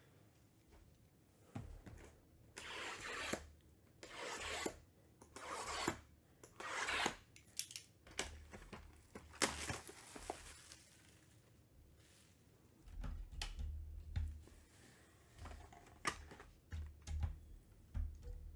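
Plastic shrink wrap being torn and crinkled off a cardboard trading-card box in a series of rustling tears. Later come low bumps and clicks as the cardboard box is handled and its lid flap opened.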